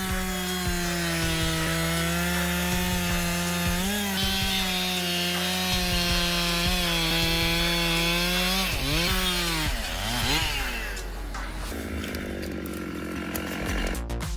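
Husqvarna 365 two-stroke chainsaw running at high revs, cutting wood, holding a steady pitch for about nine seconds. Its revs then dip and pick up again, and it runs lower and quieter near the end.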